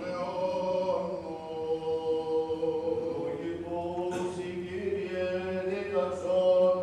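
Men's voices singing Greek Orthodox funeral chant, long held notes moving slowly from pitch to pitch.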